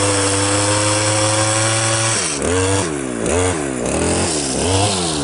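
A small engine runs at a steady speed, then from about two seconds in its pitch dips and recovers again and again, roughly every half-second or so.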